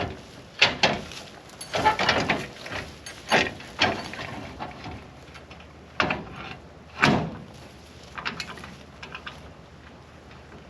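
Irregular metal clanks and knocks from hitching a small utility trailer to a truck's ball hitch: the trailer coupler being worked and latched. About half a dozen loud clanks, then smaller rattles near the end.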